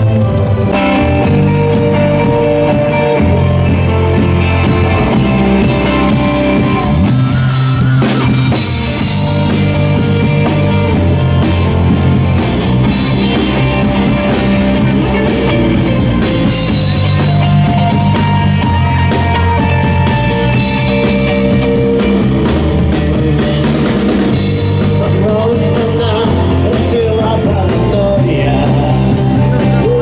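Rock-style music with drums, bass and guitar, playing steadily and loud, with some singing.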